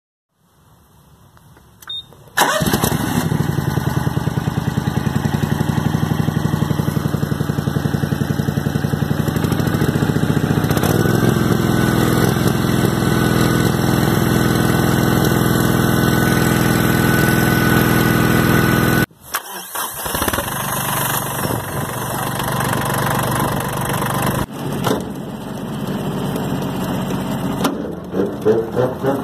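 A ride-on lawn mower's small petrol engine starts up about two seconds in and runs steadily. After a sudden break about two-thirds of the way through, a garden tractor's engine runs instead, a little quieter.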